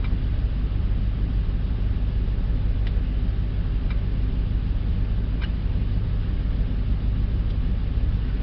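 Nissan Titan's 5.6-litre V8 idling steadily, a constant low rumble, with a few faint clicks over it.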